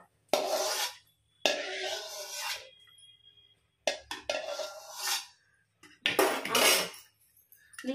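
Perforated steel ladle scraping around an aluminium kadai in hot ghee, fishing out the last fried cashew bits: four separate scrapes of about a second each.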